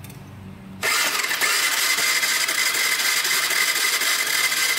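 Honda Fourtrax 300 ATV engine cranking over on its starter for about four seconds, starting about a second in, without firing: there is no spark at the plug wire.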